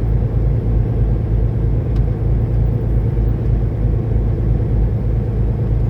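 Semi truck's diesel engine running at a steady idle: a low, even rumble with a regular throb underneath.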